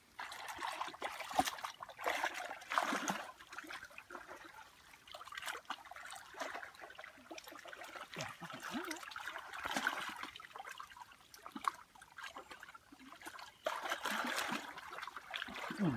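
Muddy water sloshing and splashing as hands grope and stir through a shallow pool, coming in irregular surges with small wet crackles.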